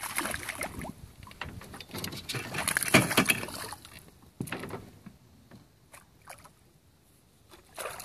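Water splashing as a released smallmouth bass thrashes away at the surface beside the boat, followed by sloshing and a run of knocks and clatter on the boat, loudest about three seconds in. Near the end a landing net splashes into the water.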